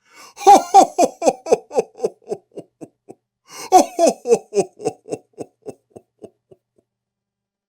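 Santa Claus's deep "ho ho ho" laugh, twice: each run of about a dozen pulses starts loud and trails off, and each "ho" falls in pitch.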